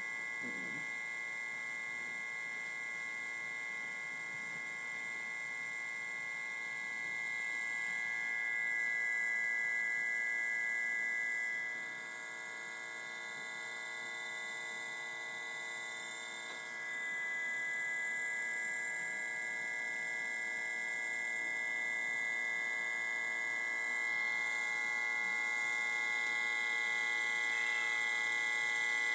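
Steady electrical hum and high whine made of several steady tones, the highest-pitched one strongest, from the running homemade 40 W laser's electronics. It grows a little louder from about 7 to 12 seconds in, drops back, then rises again from about 17 seconds on.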